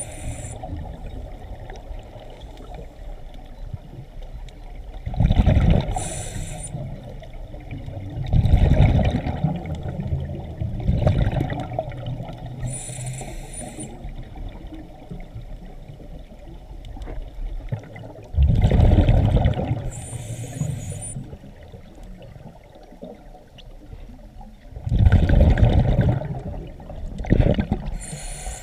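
A scuba diver's regulator heard underwater: short high hisses of inhalation through the demand valve alternating with loud bubbling rumbles of exhaled air, in a slow breathing rhythm, one breath every six or seven seconds.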